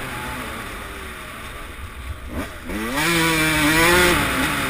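Suzuki RM144 two-stroke motocross engine heard from the rider's helmet. It runs lightly at first, then revs up sharply about halfway through, holds high revs for about a second, and eases off near the end.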